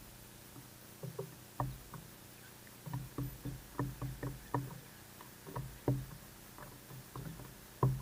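House sparrows pecking seed off a wooden fence rail: irregular bursts of sharp beak taps on the board, each with a dull thud, coming in quick clusters with short pauses between.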